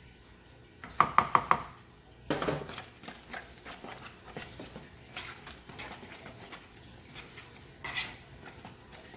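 A fork clinking and scraping against a bowl as it stirs milk into beaten eggs with chopped vegetables. A quick run of sharp, ringing clinks comes about a second in, followed by steady, irregular stirring clicks.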